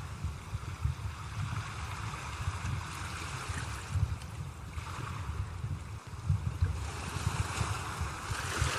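Sea waves breaking and washing in, swelling about five seconds in and again near the end, over a continuous low rumble.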